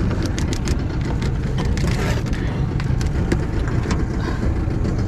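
A boat motor idling with a steady low rumble, overlaid by scattered sharp clicks and knocks.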